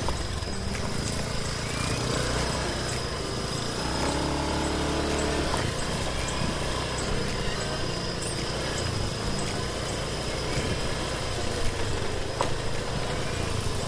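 A motor vehicle's engine running steadily, with a short pitched tone about four seconds in.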